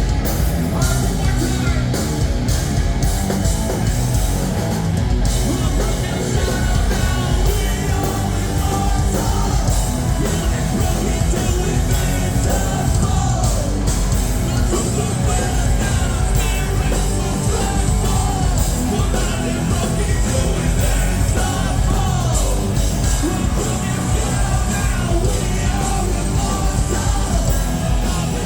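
Hard rock band playing live at full volume, with yelled and sung vocals over a dense, unbroken band sound.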